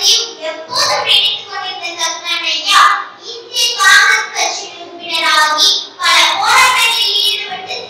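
A young girl's voice declaiming a speech in Tamil into a microphone, loud and continuous, with some syllables drawn out.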